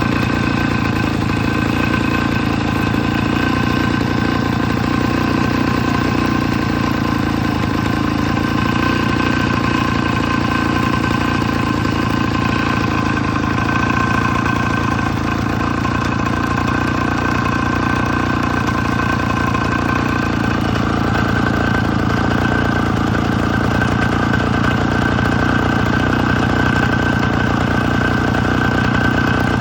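Husqvarna 65 cc two-stroke chainsaw engine running steadily at an even speed.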